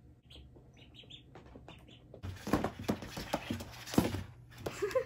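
Ducklings peeping softly in short chirps. About two seconds in come scuffling, patter and rustle as a duckling scrambles past close to the phone.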